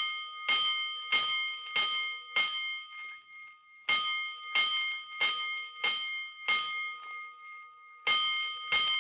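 Fire alarm bell striking the five-alarm signal: ringing strokes in rounds of five, about three strokes every two seconds, with a short pause between rounds. Two full rounds sound, then a third begins near the end.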